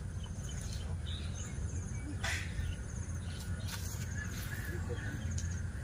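Outdoor ambience: short, high, trilling chirps repeating about once a second over a steady low rumble, with a couple of faint clicks.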